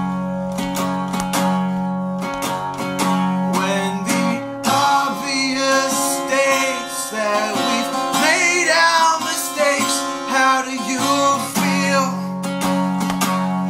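Fender acoustic guitar strummed in a steady rhythm, with a man singing over it from about five seconds in until shortly before the end.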